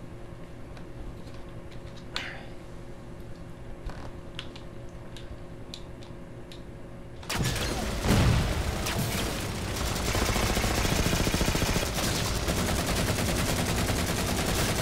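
A few faint clicks over a low steady hum. About seven seconds in, video-game gunfire cuts in suddenly: rapid automatic fire from a shooter game, with a heavy low blast just after it starts, then continuing dense shooting.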